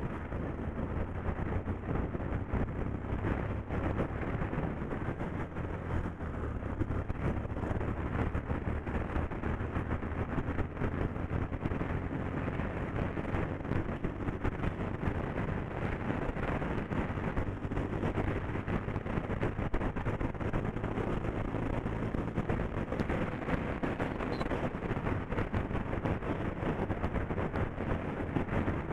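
Bajaj Pulsar 125's single-cylinder engine running steadily while the motorcycle is ridden, mixed with wind rumble on the microphone.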